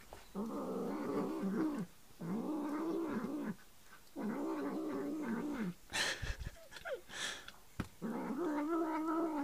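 Young black tomcat yowling: four long, low, drawn-out yowls, each well over a second, with a few short sharp noises between the third and the fourth.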